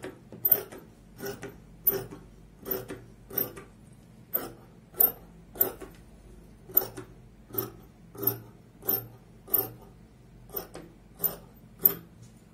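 Scissors cutting through dress fabric on a table: a steady run of short snips, about one and a half a second.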